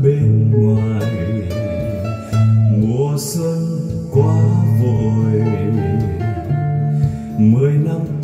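Guitar-led song played back from a MiniDisc on a Sony MXD-D1 deck through hi-fi loudspeakers.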